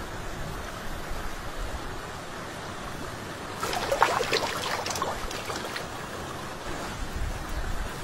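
Splashing in water about three and a half seconds in, from a small fish being let go back into the water, over a steady wash of wind and water noise.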